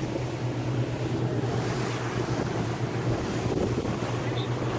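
Speedboat under way: a steady low engine drone under the rush of water and waves along the hull, with wind buffeting the microphone.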